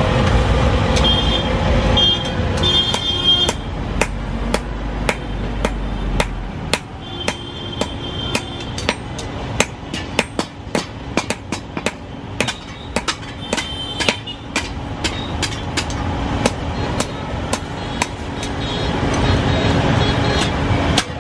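Hand hammer striking hot steel on a steel anvil block, a steady run of about two to three blows a second, forging a khurpi (garden trowel). A low rumble in the first few seconds fades out.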